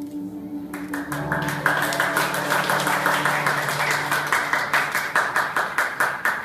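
Audience clapping and applauding, breaking out about a second in as the last held note of the song's backing music dies away. Toward the end the claps fall into a regular beat of about two to three a second, then stop suddenly.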